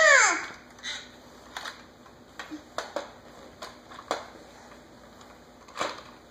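A baby's short squeal that rises and falls in pitch, then scattered light clicks and knocks of a plastic toy bulldozer being pushed and handled on a hardwood floor.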